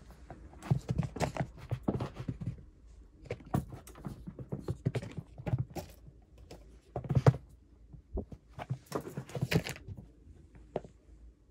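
A tabby cat pouncing and scrabbling on a cotton towel laid over carpet: irregular thumps and paw pats with rustling of the cloth, the loudest thump about seven seconds in.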